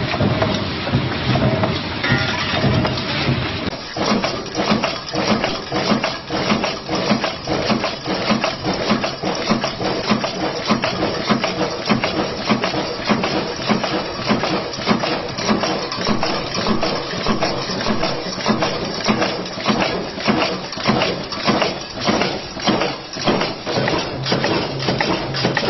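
Stamping-press machinery running. About four seconds in, a steady machine noise with a low hum gives way to a punch press working a hinge-clip die, striking metal in a steady, rapid rhythm of sharp strokes.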